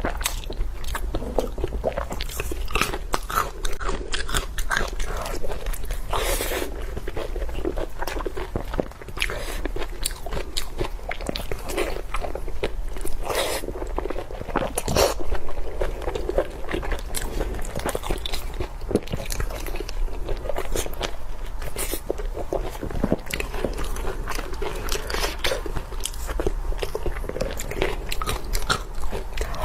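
Close-miked eating: a person biting and chewing food, with wet smacking and crunching in a dense run of short clicks, over a steady low hum.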